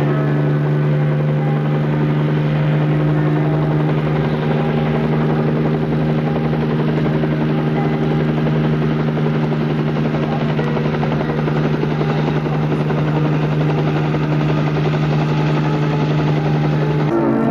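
Aircraft engine droning steadily, with a constant low hum.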